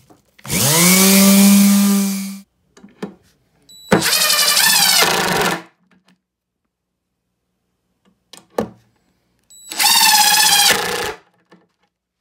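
A Hyper Tough random orbital sander spins up and runs for about two seconds, with a steady hum. Then a cordless drill-driver runs in two bursts of about a second and a half each, its pitch wavering as it drives screws into the wood, with a few short clicks in between.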